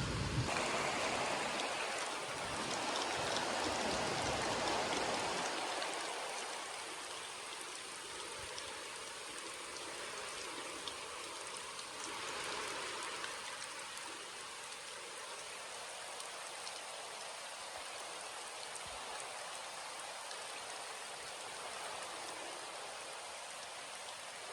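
Steady rain falling and pattering on surfaces, louder with a low rumble during the first five seconds, then settling to an even hiss.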